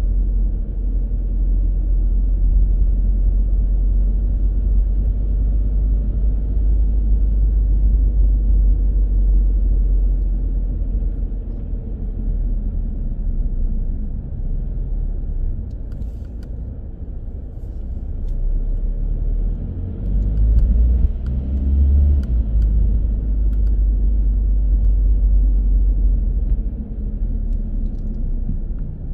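Steady low rumble of a car driving: engine and road noise from the moving car. About two-thirds of the way through, a deeper rumble swells for a couple of seconds, then settles back.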